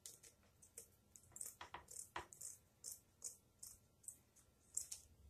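Scissors snipping through a sheet of plastic craft canvas: a run of faint, crisp clicks, a few a second, coming closer together after about a second.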